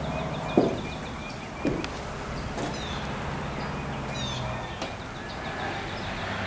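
Two footsteps from boot heels on wooden porch boards in the first two seconds, then no more steps; birds chirp a few times in the background.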